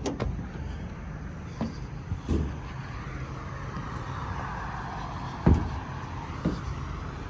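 The truck's 6.7 Power Stroke diesel engine idling with a steady low rumble, overlaid by a few sharp clicks and knocks. The loudest knock comes about five and a half seconds in.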